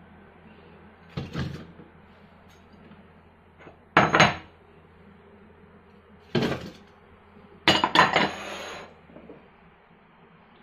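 Kitchen clatter as chopped apple is tipped from a ceramic bowl into a plastic blender jar: fruit pieces and the bowl knocking against the jar in several separate knocks, the loudest about four seconds in. Near the end comes a quick double knock with a short ringing clink.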